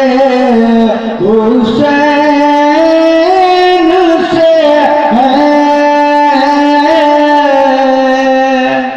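A singer's voice over a loud public-address system sings a long, drawn-out devotional line. The held notes slide slowly from pitch to pitch, and the singing stops just before the end.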